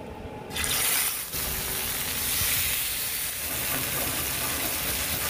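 Smoked ribeye medallions sizzling as they are laid into a hot cast iron skillet to sear. The sizzle starts suddenly about half a second in and goes on steadily.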